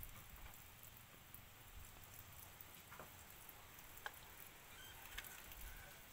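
Near silence: faint background hiss with a few light, scattered clicks and ticks.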